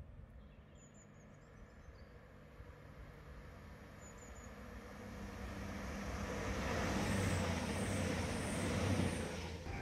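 A CrossCountry Voyager diesel multiple unit approaches and passes at speed. The sound of its engines and wheels on the rails swells to its loudest about seven to nine seconds in, then cuts off suddenly. A bird chirps faintly a couple of times early on.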